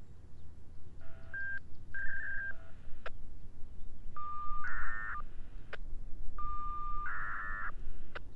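Electronic signalling tones like touch-tone dialling, typical of the coded activation for an outdoor warning siren's automatic test. Two short beeps come first, then twice a steady tone that breaks into a quick, dense burst of tones, with sharp clicks between them. A low rumble of wind runs underneath.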